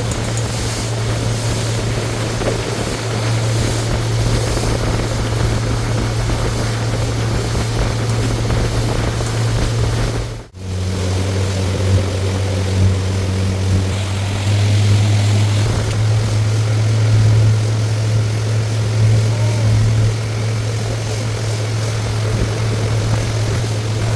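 Motorboat engine running at a steady drone, with water and wind noise. About ten seconds in the sound drops out briefly, then the engine resumes at a slightly lower pitch.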